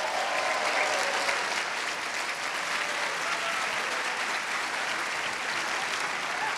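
Large audience applauding steadily, a dense, even clapping that keeps going.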